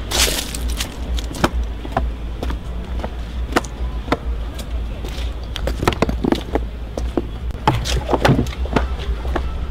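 Footsteps on a paved outdoor path, heard as irregular short knocks, over a steady low rumble.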